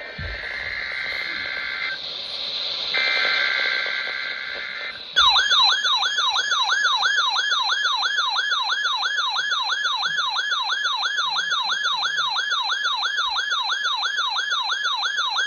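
Emergency Alert System SAME header data on NOAA Weather Radio for a Required Weekly Test: two buzzy two-tone data bursts with a short gap between them. About five seconds in, a siren-like alert tone starts, warbling up and down about three times a second, and it cuts off abruptly after about ten seconds.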